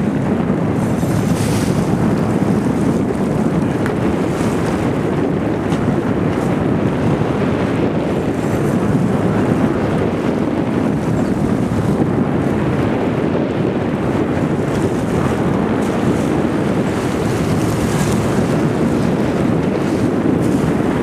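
Steady wind rumble on the microphone over a boat's engine running and water rushing along the hull, with a few faint clicks.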